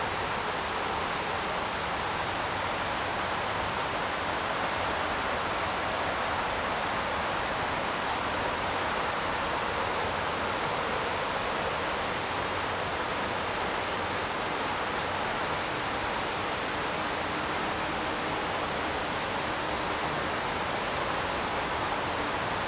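Shallow creek water running over a stony riffle: a steady rushing and burbling.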